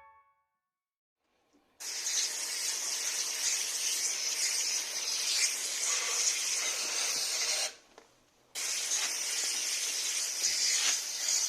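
Cleaning liquid sprayed onto a split air conditioner's indoor unit: a steady spraying hiss for about six seconds, a short break, then spraying again.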